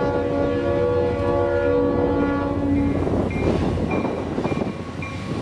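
Locomotive horn sounding one long chord that cuts off about three seconds in, over the noise of a train rolling past; after it, short high tones repeat at an even pace, a little under two a second.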